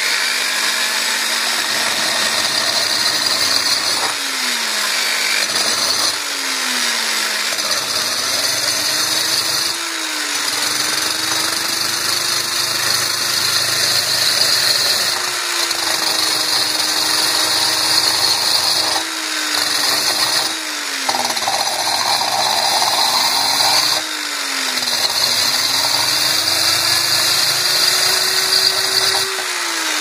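Electric drill with a diamond-coated core bit grinding into a ceramic saucer, starting a hole. The motor's pitch sags and picks back up several times as the bit catches. It winds down near the end.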